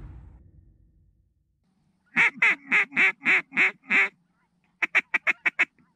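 Duck quacking: a series of seven quacks, about three a second, then after a short pause a quick run of six shorter quacks.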